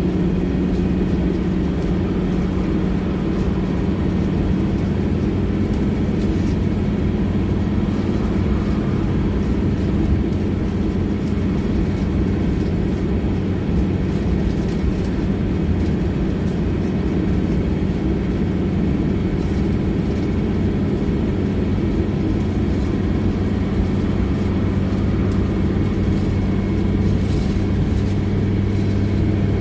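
Scania OmniLink single-deck bus running, heard from inside the passenger saloon: a steady low engine hum with road and running noise and a few light rattles.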